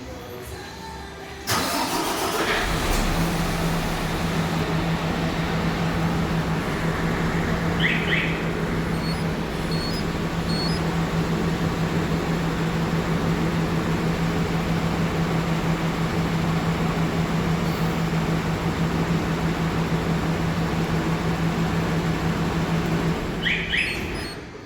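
MAN truck's diesel engine started by its newly fitted remote starter: it cranks briefly and catches, idles steadily for about twenty seconds, then shuts off near the end. Two short chirps sound, one about a third of the way in and one just before it stops.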